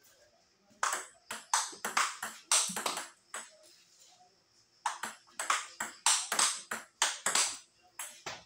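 Table tennis ball clicking off the paddles and the table in quick back-and-forth rallies, about four hits a second. Two runs of hits a couple of seconds long, with a short pause between, and one more hit near the end.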